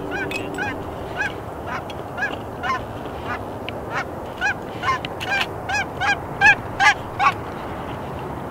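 Canada geese honking: a steady run of short, clipped honks, two or three a second, growing louder about halfway through.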